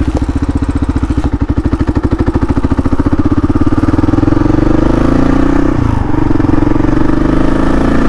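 Kawasaki KLR650's single-cylinder four-stroke engine running under way at low road speed. Its separate firing pulses quicken and run together as it pulls. The engine note dips briefly about six seconds in.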